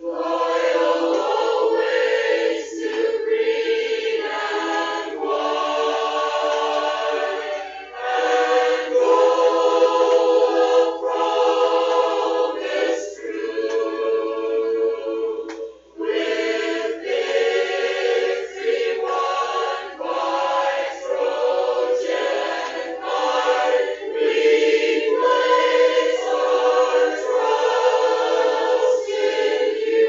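A choir singing a high school alma mater in slow, held chords, with brief pauses about 8 and 16 seconds in.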